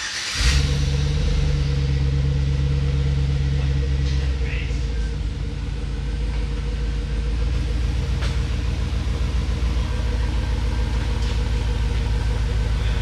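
Chevrolet Silverado pickup's engine starting: a brief crank, then it catches at a fast idle that settles to a lower steady idle about four seconds in. The truck then pulls forward slowly at idle.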